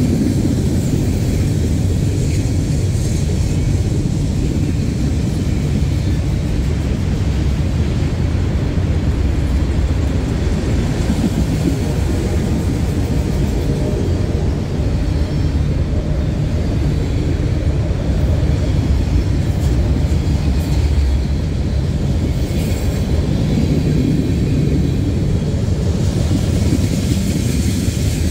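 CSX freight train's cars (covered hoppers, autoracks and tank cars) rolling past on steel wheels and rails: a steady, loud, deep rumble.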